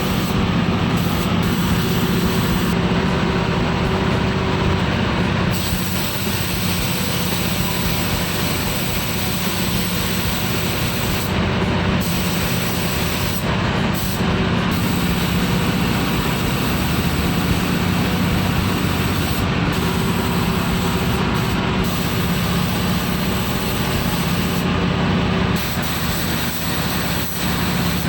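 Steady loud hiss of compressed-air equipment over a low, even machine hum.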